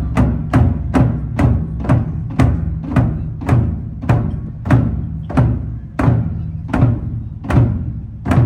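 Taiko drums struck with sticks in a steady beat of about two strokes a second, each stroke a sharp crack over a deep resonant boom.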